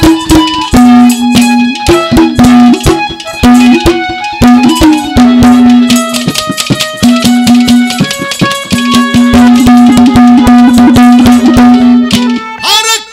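Instrumental interlude of Haryanvi ragni folk music: a harmonium plays a melody with long held notes over fast, dense hand-drum beats.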